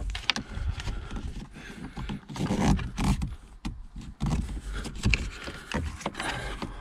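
Plastic centre-console side trim of a Ford Focus Mk3 creaking and knocking as a plastic trim tool levers at its retaining clips: a run of irregular clicks and knocks, loudest a little before halfway.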